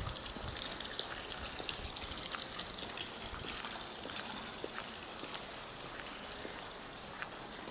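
Steady trickle and splash of running water, with faint scattered clicks.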